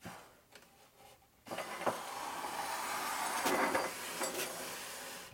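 Harley engine mock-up, cases with cylinders and heads fitted, being slid and turned around on the bench: a few light knocks, then a steady metal scraping with scattered clinks from about a second and a half in.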